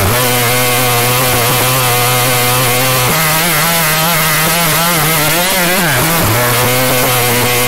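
A loud, continuous buzzing drone like a small motor, stepping up in pitch about three seconds in, dropping back about six seconds in, and rising again near the end.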